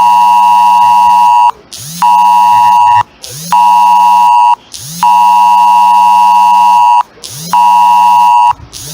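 Wireless Emergency Alert attention tone sounding for a flash flood warning: a loud, steady two-tone blare with a low buzz under each tone. It goes in the alert's cadence of one long burst of about two seconds and then two short one-second bursts, separated by half-second gaps and repeating.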